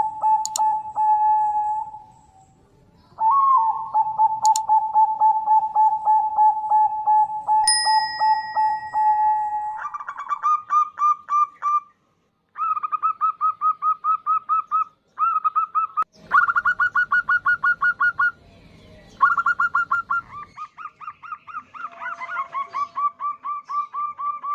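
Female zebra dove (perkutut) calling: long runs of rapid, evenly repeated short coos, pitched higher after about ten seconds, with the sound cutting out briefly a couple of times in the middle. A steady high tone sounds alongside for about two seconds, around eight seconds in.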